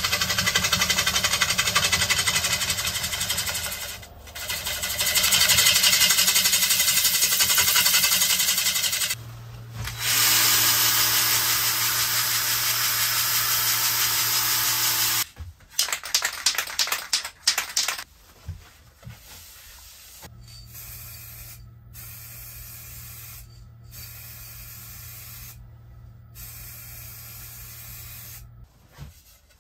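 A steel turning tool cutting the face of a spinning English sycamore platter on a woodturning lathe, a loud, steady, rough scraping. After a cut, a cordless drill runs a sanding pad on the turning wood with a steady hum for about five seconds. In the quieter last part, an aerosol can sprays the platter over a low hum.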